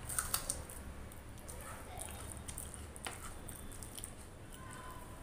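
A mouthful of rice and potato masala curry being chewed, with sharp wet clicks just after the start and again about three seconds in, and fingers squishing rice and curry together on the plate.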